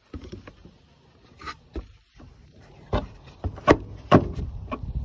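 Plastic air filter housing lid and paper filter of a Ford Focus 1.0 EcoBoost being handled and pushed into place: scattered rubbing and clicks, with a few sharp plastic knocks in the second half.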